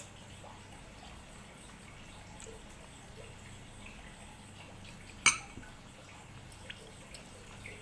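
Wooden chopsticks handling a dumpling over glass sauce bowls: a few faint clinks and one sharp click against glass about five seconds in.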